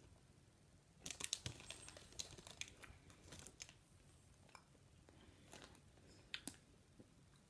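Candy wrapper crinkling and crackling as it is handled: a quick run of sharp crackles for a few seconds from about a second in, then a few scattered crinkles near the end.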